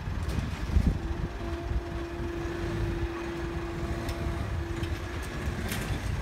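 Level crossing barriers lifting, with a steady hum from the barrier mechanism for about four seconds over a low rumble of wind and road traffic. Cars begin moving across near the end.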